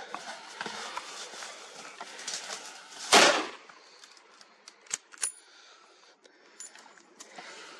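A single gunshot about three seconds in, sharp and loud with a short echoing tail. Before it, rustling and footsteps through dry brush.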